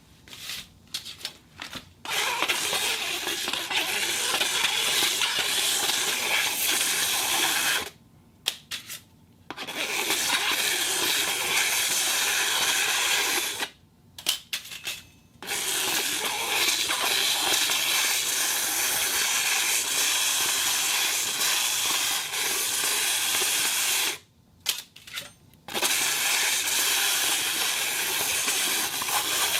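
Iron plate turning on a turntable, making a steady scraping hiss in long runs of several seconds. The runs are broken three times by short pauses that hold only a few small clicks.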